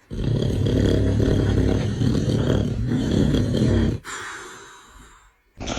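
A man snoring loudly: one long, rattling snore of about four seconds that stops abruptly, then a breath out that fades away.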